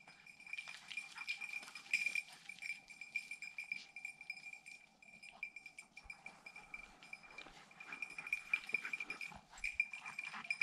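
A small bell on a hunting dog's collar ringing without a break, pulsing as the dog moves, with rustling of brush and footsteps.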